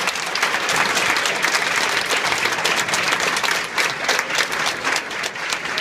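Audience applauding, a dense clapping that thins toward scattered individual claps near the end.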